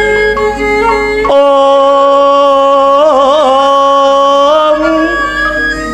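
A wayang kulit dalang singing a slow Javanese suluk (pathetan) over gamelan accompaniment. He holds one long note that wavers about three seconds in.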